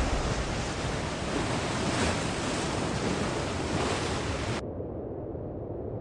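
Ocean waves and wind, a steady rushing noise, that turns suddenly muffled and duller about four and a half seconds in.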